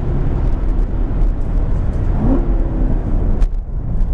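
C7 Corvette's V8 engine running as the car drives past on a race track, with a brief rise in pitch a little past halfway.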